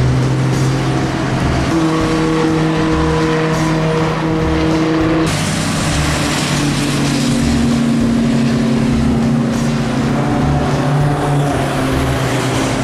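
Historic racing cars' engines running hard as the cars pass one after another on a wet circuit, loud and steady throughout.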